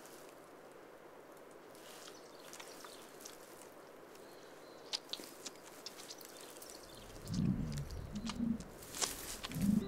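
American bison cow in labour giving a few low grunts that rise and fall, starting about seven seconds in, after several seconds of faint rustling and small ticks.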